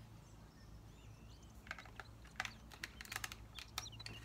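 Light plastic clicks and taps from handling a small clock insert's plastic battery back while a battery is fitted. The clicks start about a second and a half in and come in quick irregular bunches.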